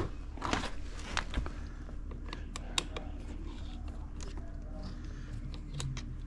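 Small metallic clicks and taps of a screwdriver and nut being worked onto a battery terminal bolt, coming irregularly several times a second, over a steady low hum.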